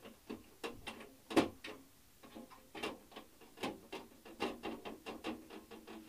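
Irregular plastic clicks and knocks from a Clarke MIG 145 Turbo welder's plastic casing as its panel is shut and handled. The loudest knock comes about a second and a half in.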